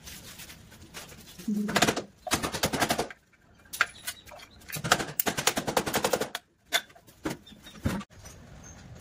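Rapid runs of sharp taps from fastening decorative wall panels in place: two bursts of about ten strikes a second, then a few single knocks.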